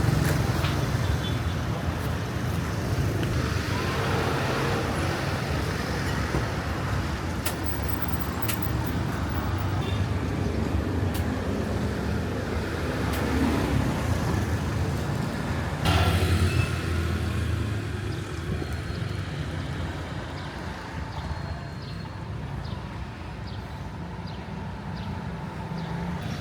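City street traffic running steadily, a low engine rumble with road noise, and a sudden thump about sixteen seconds in.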